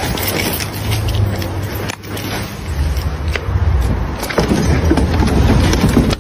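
Steady low rumble of street traffic on a handheld phone microphone, with scattered clicks of handling noise.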